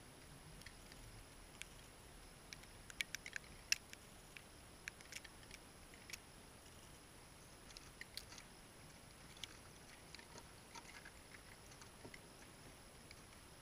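Near silence broken by scattered faint crunches and clicks, with a brief cluster of sharper ones about three seconds in: boots stepping and shifting on packed snow and ice.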